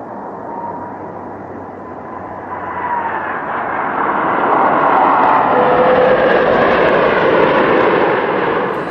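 Twin-engine jet airliner's engines going by at close range: a loud rushing roar with a faint whine. It swells from about two seconds in, peaks mid-way and eases off near the end.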